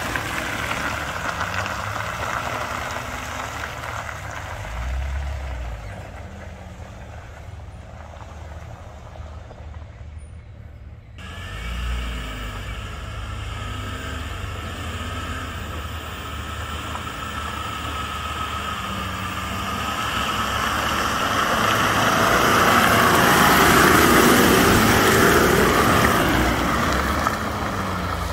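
Off-road 4x4 engine running in mud, its pitch wandering with the throttle. The sound drops away for a few seconds near the middle, cuts back in suddenly, then builds to its loudest in a sustained strained rev about three quarters of the way through.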